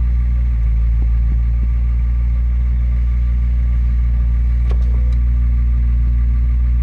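Turbocharged Honda D17 four-cylinder in an EM2 Civic idling steadily, idling a little rich, with a few faint clicks about a second in and a short sharp tick near the end.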